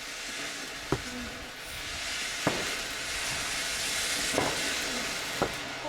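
Ground firework burning with a steady hiss that grows louder about two seconds in, with four sharp pops or cracks a second or two apart.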